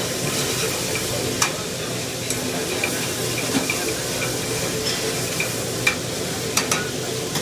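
Vegetables sizzling in a sauté pan over a gas burner as the pan is tossed and stirred, with several sharp metallic clanks of the pan against the range grate, over a steady hum.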